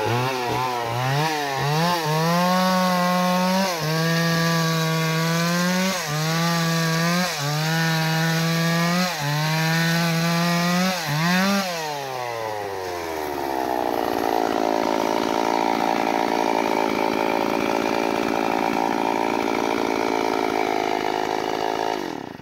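Two-stroke chainsaw cutting acacia branches, run at full throttle in about six bursts with brief dips in engine speed between them. About twelve seconds in it drops back and settles to a steady idle.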